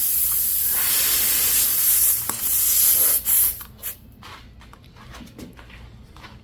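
Air hissing steadily out of a punctured car tire during a plug repair, ending after a couple of short spurts about three and a half seconds in. Faint clicks and handling sounds follow.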